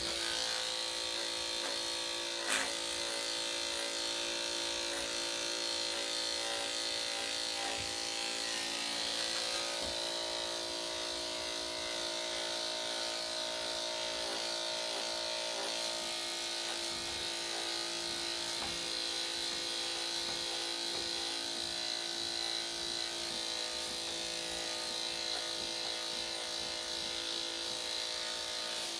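Electric dog grooming clippers with a #7 blade switching on and running with a steady buzzing hum. There is a single sharp click about two and a half seconds in.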